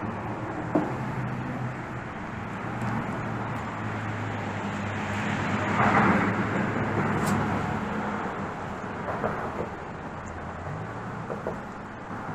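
Steady low engine drone of passing road traffic, building to its loudest about six seconds in and then easing off, with a few small knocks.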